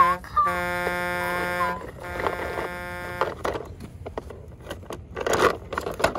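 Buzzy horn-like honking in long, steady blasts as a toy pickup truck pulls up, followed by scattered plastic clicks and rustles of the toy being handled.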